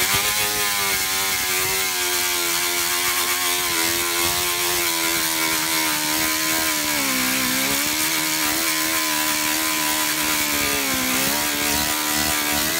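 Pneumatic air grinder with a sanding disc running steadily, grinding and roughing up a plastic bumper so epoxy will bond: a steady high whine over the hiss of air. The whine sags briefly twice, about seven and eleven seconds in.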